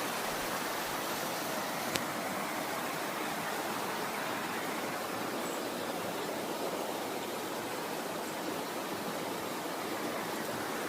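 Mountain valley stream flowing, a steady continuous rush of water, with a single brief click about two seconds in.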